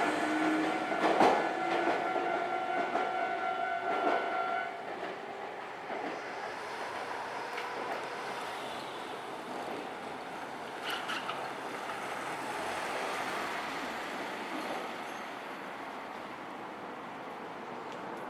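A train passes through a Japanese railway level crossing and moves away, with the crossing's warning bell ringing steadily until it cuts off about four to five seconds in. After that there is a steady hum of background traffic.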